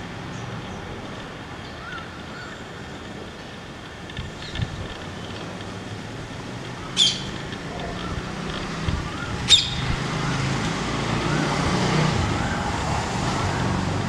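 Rose-ringed parakeet giving two short, shrill squawks about two and a half seconds apart, over steady road-traffic noise that grows louder in the second half.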